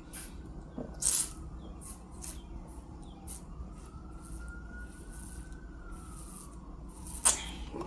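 Eating noises, chewing and lip smacks, with sharp smacks about a second in and near the end, over a faint distant siren slowly rising and falling in pitch.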